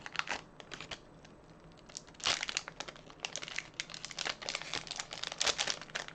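Wrapping paper crinkling and tearing in irregular bursts as a newly bought puzzle is unwrapped by hand. The noise is sparse at first and grows busier and louder from about two seconds in.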